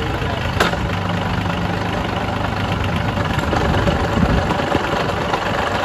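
Small diesel engine idling steadily, with one sharp click about half a second in.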